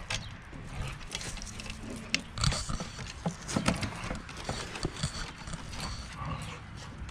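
Irregular small clicks and knocks of bolts, nuts and washers being handled and threaded into a metal fender-eliminator bracket under a motorcycle's tail, close to the microphone, over a low steady rumble.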